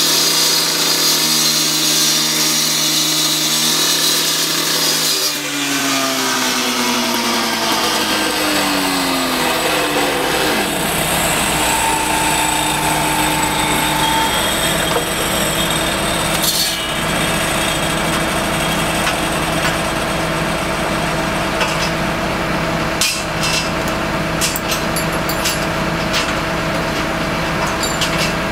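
Construction machinery engines running steadily, the engine note sweeping down about a quarter of the way in. Sharp metallic knocks come about halfway through, and a run of clanks near the end.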